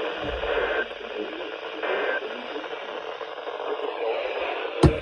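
Weather radio receiver's speaker putting out a steady static hiss from the NOAA Weather Radio broadcast, with a single sharp click near the end.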